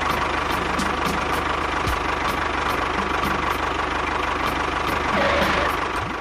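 Small engine of a DIY mini tractor running steadily at an even speed, with a fast regular low chugging.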